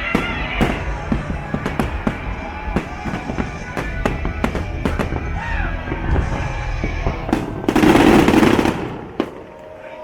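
Fireworks going off in quick succession, many sharp bangs, with show music fading out in the first second. About eight seconds in comes a loud, dense rush of noise lasting about a second, the loudest moment, after which it dies down.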